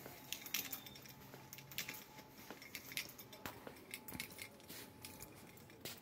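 Quiet store ambience: a faint steady hum with scattered light clicks and clinks.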